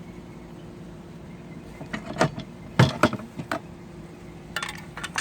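Garden hand tools being handled and set into a tool box, knocking and clattering several times; the loudest knocks come about three seconds in.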